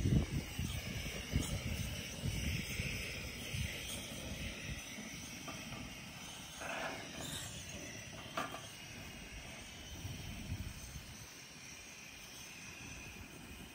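Outdoor background noise: a steady hiss with uneven low rumbles and a couple of faint clicks.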